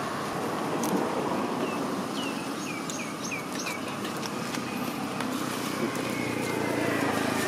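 A bird calling a quick run of about six short falling chirps, two to four seconds in, over steady outdoor background noise, with a few faint clicks.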